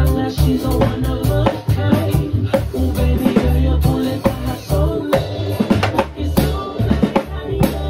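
Acoustic drum kit played with sticks along to a recorded song with bass and singing: snare, kick and cymbal strokes over the track.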